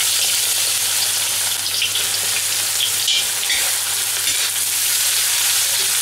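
Sliced carrot, sweet pepper and celery frying in hot vegetable oil and beef fat in a cast-iron kazan: a steady sizzle, with the vegetables stirred by a metal spoon.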